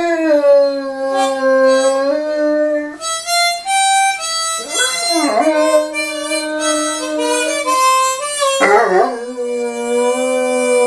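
Great Dane puppy howling along with a harmonica. The harmonica plays held notes while the puppy's howls glide and waver, with fresh howls starting about halfway through and again near the end.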